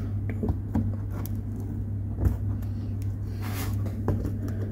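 Small box and packaging being handled and opened by hand: scattered light clicks and taps, with a brief rustle about three and a half seconds in, over a steady low hum.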